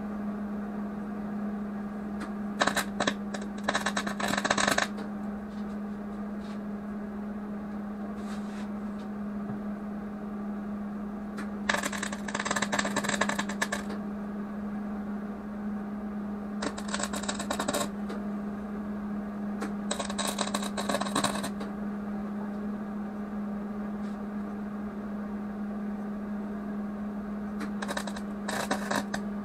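Arc welder laying short welds on a Generac generator's air filter housing, run hot and quick: five bursts of crackling arc, each one to two seconds long, over a steady low hum.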